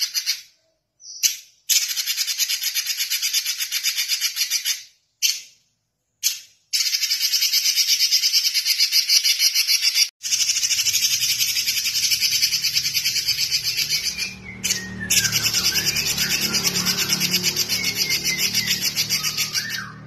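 Red-billed leiothrix (Pekin robin) singing in long bouts of fast, buzzy repeated notes, broken by a few short pauses. About halfway through a low hum comes in underneath, and a few gliding whistles sound in the last few seconds.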